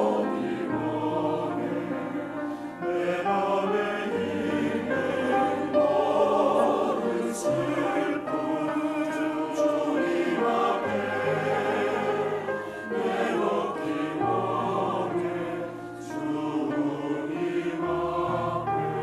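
Mixed choir of men's and women's voices singing an anthem, accompanied by grand piano with long held bass notes.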